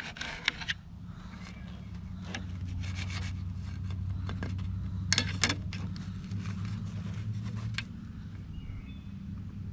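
Serrated table knife sawing through a soft baked bun and scraping on a plastic plate, with a few sharp clinks of cutlery on the plate about five seconds in. A steady low hum runs underneath.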